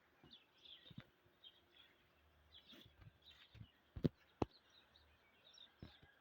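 Faint outdoor ambience with small high chirps scattered throughout, like birds. A few sharp knocks stand out, the loudest two about four seconds in.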